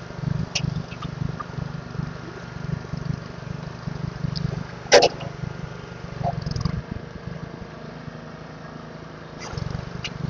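Low, uneven engine rumble that drops away about seven seconds in and comes back near the end, with a few sharp clicks over it, the loudest about five seconds in.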